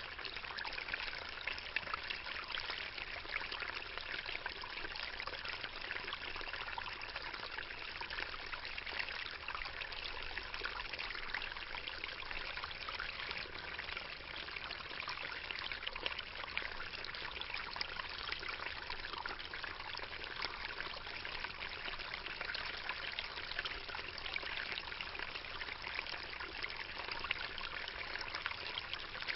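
Water trickling and splashing steadily, with many small splashes and drips.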